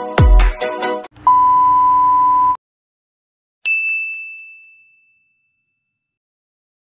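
Intro music with deep bass hits ends about a second in. It is followed by a steady electronic beep of about a second, then a single bright ding that rings out and fades.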